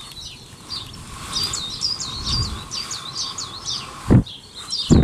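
A garden songbird singing a quick run of repeated high chirps, with a short low thump about four seconds in.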